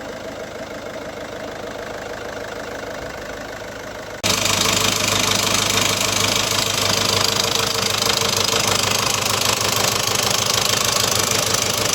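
Peugeot 1.6 HDi 16v four-cylinder diesel idling fairly quietly after its repair, then, about four seconds in, an abrupt cut to the same engine idling much louder with a hard rapid knocking clatter. That is how it ran before the repair, a dangerous knock that came with a loss of power and low oil pressure.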